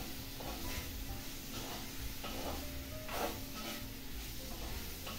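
Banana peppers sizzling in hot oil in a clay pot while a spoon stirs them. Each stroke gives a short scrape and rustle, about two a second.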